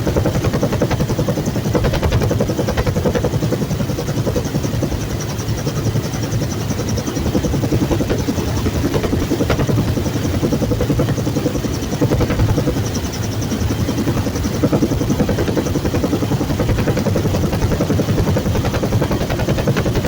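Bell UH-1 Huey helicopter running steadily, a loud continuous mix of turbine engine and rapidly pulsing main rotor.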